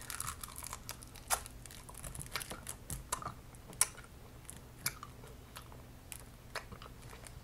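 A person chewing a Life Savers candy close to the microphone: scattered short mouth clicks and smacks.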